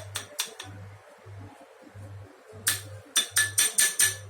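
A spoon clinking against a glass bowl as cornstarch is spooned in: a few light clinks at first, then a quick run of about six ringing taps near the end.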